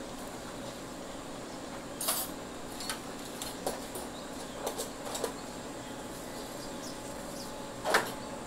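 Scattered light clinks and knocks of kitchen utensils against bowls and a metal tray, over a steady low machine hum. The loudest knock comes near the end.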